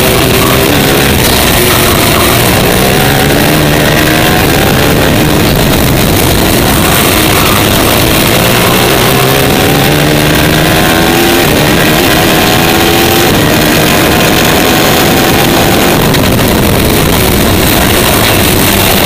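Superkart's TM 450 four-stroke engine heard on board at racing speed. It climbs in pitch in several long sweeps, dropping back between them as the kart accelerates, over a steady rush of wind.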